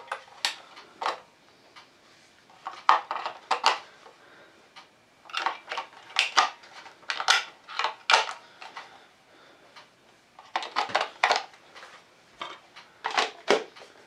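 Sharp clicks and clattering of small hard objects being handled, in several short clusters a second or two apart.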